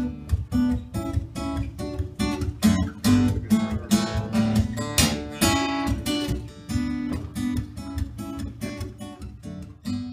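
Acoustic guitar played solo: an instrumental passage of picked notes and strummed chords, getting a little quieter near the end.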